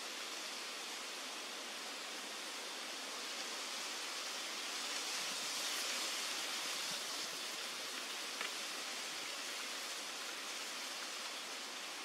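Steady outdoor ambient hiss, like distant rushing water or wind in foliage, swelling a little in the middle, with a single faint tick about two-thirds of the way through.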